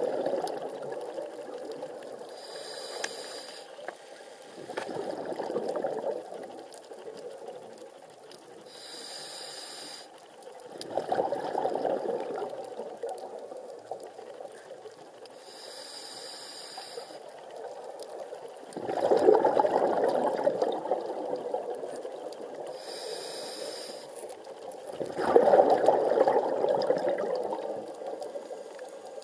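Scuba diver breathing through a regulator underwater: a short high hiss on each inhale, then a longer, louder rush of exhaled bubbles, four breaths about six to seven seconds apart.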